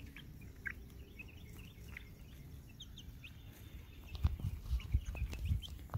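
Young chickens, about a month old, giving short, high peeps now and then while pecking feed. A few low thumps come in the second half.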